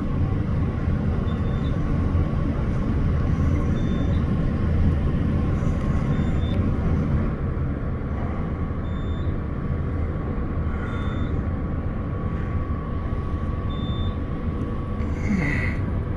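Glass elevator descending: a steady low rumble of the car and its drive, with a thin constant whine over it and a faint short high beep about every two and a half seconds.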